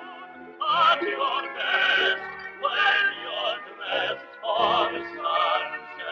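Man singing a song with a wide vibrato, in short phrases, over musical accompaniment.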